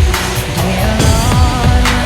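Loud electronic music with a steady pounding beat and sustained synth tones.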